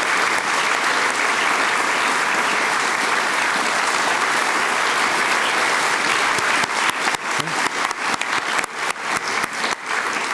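Audience applauding: dense, even clapping for the first six seconds or so, then thinning into separate claps that die away near the end.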